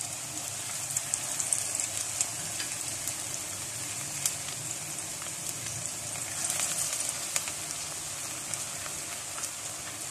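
Noodle-and-chicken pakoras deep-frying in hot oil in a kadai: a steady sizzling hiss with scattered crackles and pops.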